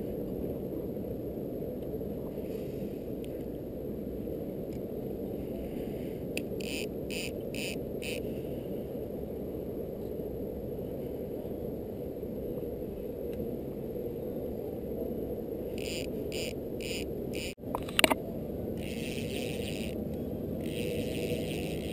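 A boat's motor running steadily at trolling speed, a low continuous hum. Two short runs of light, evenly spaced ticks come about a third of the way in and again near the end, followed by a single click.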